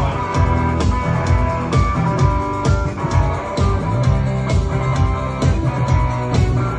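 Rock instrumental on guitar, the strings struck with a pick, over bass notes and a steady percussive beat about two strikes a second.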